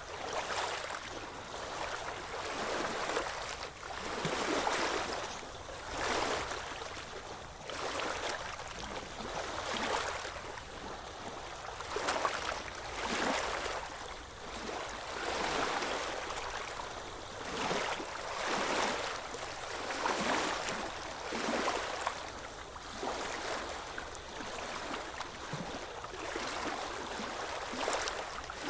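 Ocean waves washing onto a beach, the surf swelling and falling away every second or two.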